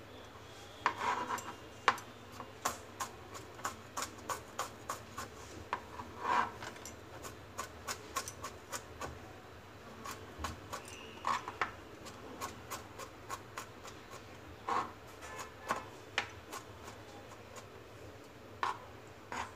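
Chef's knife mincing garlic cloves on a plastic cutting board: quick irregular knocks of the blade on the board, often several a second, with a few longer scrapes in between.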